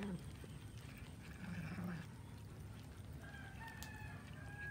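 Cats feeding on a cooked chicken carcass, with one low, drawn-out cat growl about one and a half seconds in. In the second half a distant rooster crows, one long call held in a few level steps.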